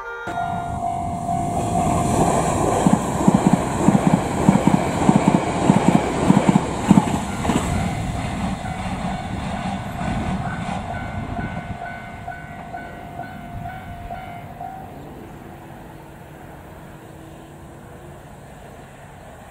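E3 series Shinkansen mini-shinkansen train running past on conventional track. Its wheels clatter rhythmically over the rail joints, loudest as it goes by, and a steady whine is heard with it. The sound then fades as the train draws away.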